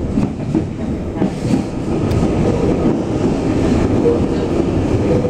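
Lima Metro Line 1 electric train heard from inside the passenger car, with steady running noise from the wheels on the rails as it pulls into a station. A brief faint whine comes about four seconds in.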